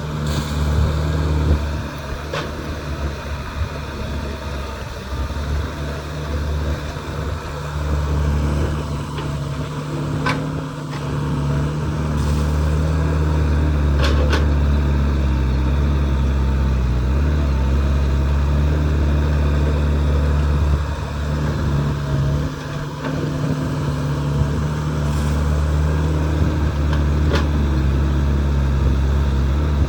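Heavy diesel engine of an excavator running steadily, getting louder about twelve seconds in, with a few sharp metallic knocks.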